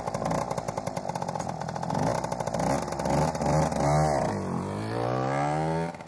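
Small motorcycle engine running with rapid, even firing pulses, then revving: the pitch dips about four seconds in and climbs steadily before dropping away near the end.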